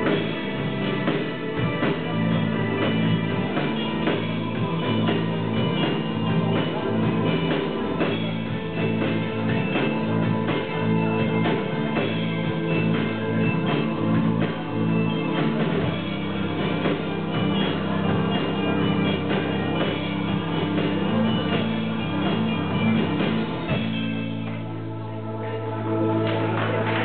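A live rock band playing: electric guitar, keyboard and drum kit over steady held chords. A few seconds before the end the drums drop out, leaving the held notes ringing more softly.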